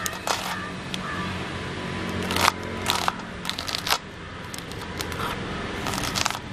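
Serrated kitchen knife chopping small red onions on a wooden cutting board: sharp, irregular knocks of the blade striking the board, a few in quick succession in the middle, over a steady low hum.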